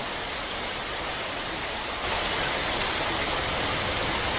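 Heavy rain and running floodwater: a steady rushing noise that gets louder about two seconds in.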